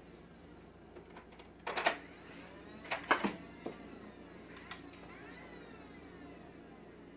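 Sharp plastic clacks of a Nerf blaster: one cluster about two seconds in, another about a second later, then two lighter clicks.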